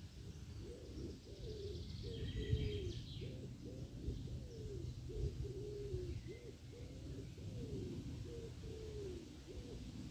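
A goose giving a run of low, soft calls, one or two a second, each bending up or down in pitch. A small songbird trills briefly about two seconds in, over a low rumble.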